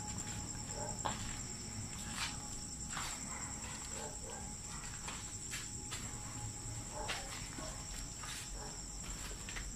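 Crickets chirping steadily, a continuous high-pitched ring, with irregular footsteps on a concrete path.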